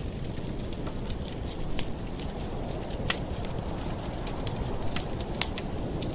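Campfire burning: a steady low rush of flames with scattered sharp crackles and pops, two of them louder, about three and five seconds in.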